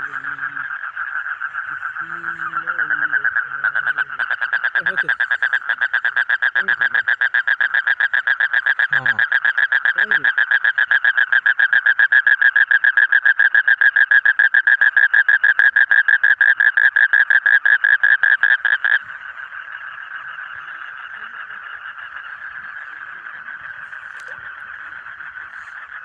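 A toad calling with its throat sac blown up: a long, rapid trill. It grows much louder about four seconds in and cuts off sharply about three-quarters of the way through, while a fainter trill carries on before and after it.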